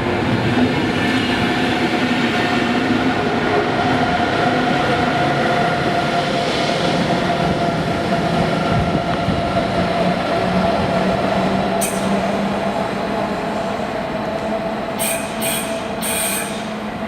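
Train at a station platform, running with a steady motor whine whose pitch sags slightly lower, as if slowing. Brief high-pitched squeals sound about twelve seconds in and again several times near the end as the noise starts to fade.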